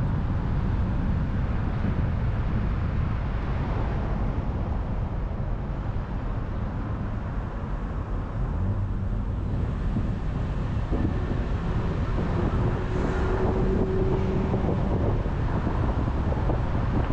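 Car driving along a road: steady low rumble of tyre, road and wind noise. A faint steady hum comes in a little past the middle for a few seconds.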